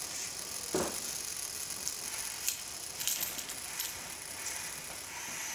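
Robot arm at work picking up a stack of objects: a few small, sharp clicks and light clinks over a steady mechanical background.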